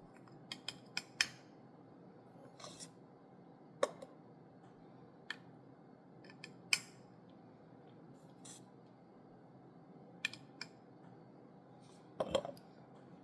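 Irregular small clicks and clinks of a spoon against a reusable Nespresso Vertuo coffee pod as ground coffee is spooned into it, over a faint steady background hum.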